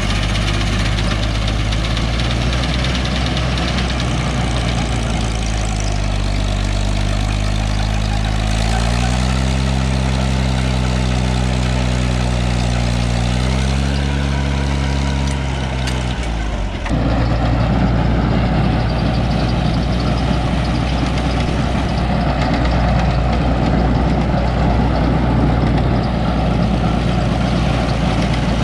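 Tractor engine running steadily. Its pitch rises twice in the middle, and about 17 seconds in the sound changes abruptly to a louder, rougher mix of engine and machinery noise.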